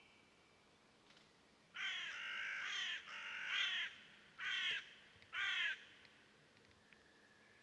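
A bird calling four times: two longer calls about two seconds in, then two short ones.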